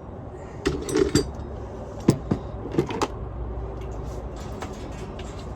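A few sharp clicks and knocks from handling parts, bunched in the first three seconds, over a low steady hum.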